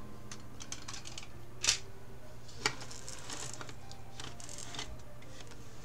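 Light clicks and taps of art supplies being handled on a desk, with two sharper clicks a little under two seconds and nearly three seconds in, over a steady low hum.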